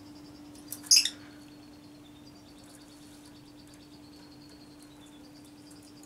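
A lovebird gives one loud, short, shrill call about a second in. Underneath run a faint, fast ticking chatter and a steady low hum.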